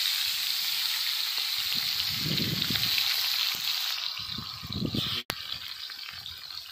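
Pieces of belhra fish sizzling in hot mustard oil in a kadhai just after going in. The sizzle is a dense, steady hiss that eases off after about four seconds.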